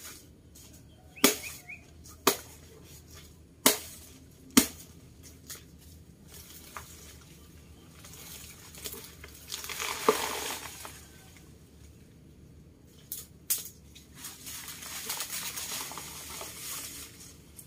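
Blade chops into a banana plant's soft trunk, four sharp strikes in the first five seconds. Then rustling and tearing of the big leaves as the cut banana plant is pulled over and falls, swelling about ten seconds in and again near the end.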